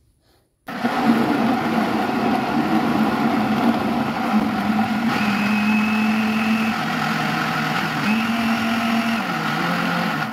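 SQ Professional electric blender's motor running at speed, blending chunks of pineapple and frozen banana in liquid into a smooth juice. It starts abruptly about a second in and is switched off at the very end, its pitch stepping down and back up a few times along the way.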